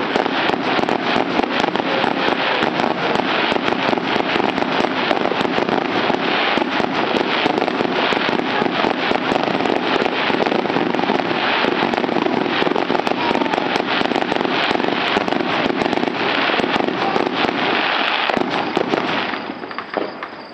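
Dense barrage of aerial fireworks: rapid, overlapping bangs with no gaps, dying away near the end.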